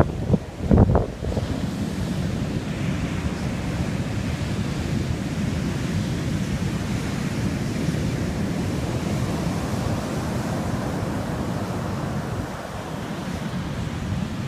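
Heavy storm surf breaking and rushing up the beach, with wind buffeting the microphone. A brief loud thump comes about a second in.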